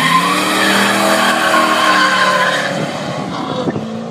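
A 1991 C4 Corvette's L98 V8 at high revs doing a burnout, its rear tires squealing steadily. The engine climbs in pitch at the start, and the squeal fades after about two and a half seconds, leaving the engine running.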